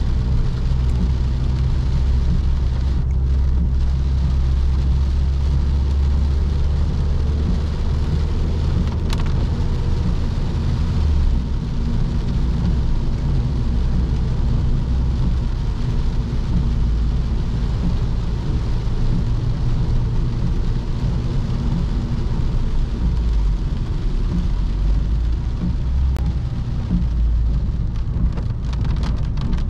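Ford Focus 1.6 petrol four-cylinder engine running steadily while the car is driven, over a steady hiss of tyre and road noise. The low engine note changes level about a third of the way in and again later on.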